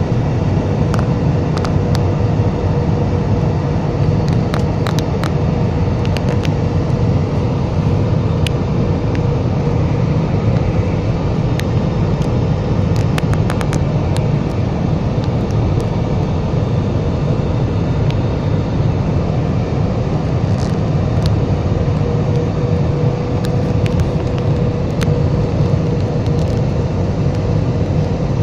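Steady airliner cabin noise on the approach to landing: a low drone of the wing-mounted jet engines and rushing air, with a faint steady tone running through it and scattered small clicks.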